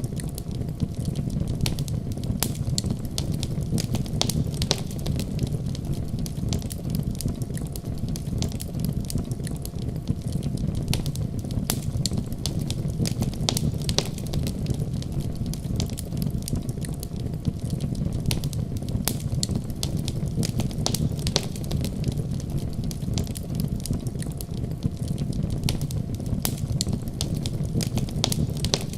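Wood fire burning in a fireplace: frequent, irregular sharp crackles and pops from the logs over a steady low rumble.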